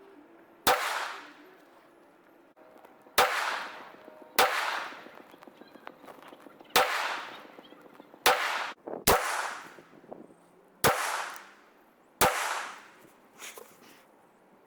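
Aero Precision M5 semi-automatic rifle in 7.62x51/.308 firing eight shots at irregular intervals, each sharp report followed by a rolling echo that dies away within about a second.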